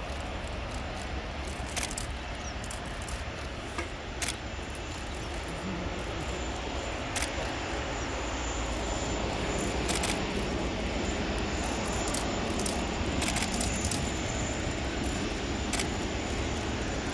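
Airbus A380's four Rolls-Royce Trent 900 jet engines running at taxi power: a steady rumble and hiss that slowly grows louder over the second half. A few sharp clicks are heard now and then.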